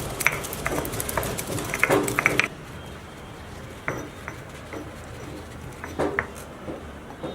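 A spoon clinking and scraping against a pan while chicken fries, with a sizzling hiss. The hiss cuts off suddenly about two and a half seconds in, leaving only scattered clinks.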